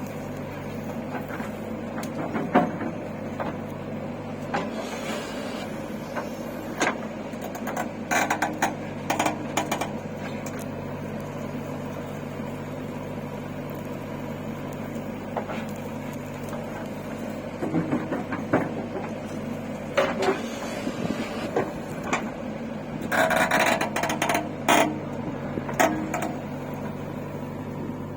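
Heavy machine's engine running steadily at a constant speed, with clusters of sharp metallic clanks and knocks on and off over it.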